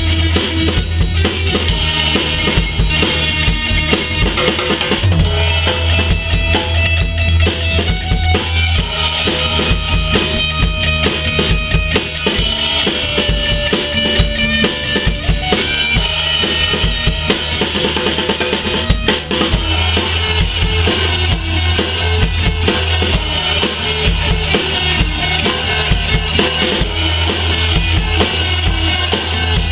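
A rock band of drum kit, bass guitar and electric guitar playing together without a break, with the drums most prominent.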